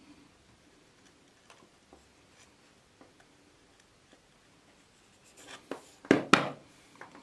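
Faint handling and rubbing of wires and the heater element on a tabletop. Then, near the end, a short clatter of sharp knocks, two of them loud, as the pliers are put down.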